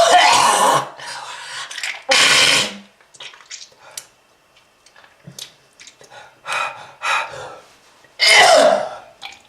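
A person coughing hard and clearing their throat: harsh coughs at the start, again about two seconds in and near the end, with quieter hacking and throat sounds in between. This is the heavy cough of a smoker.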